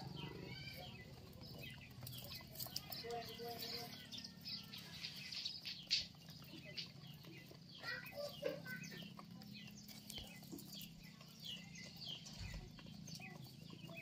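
Domestic pigeons pecking unhusked rice grains off concrete: an irregular run of light taps and clicks, with a brief flutter of wings and high bird chirps in the background.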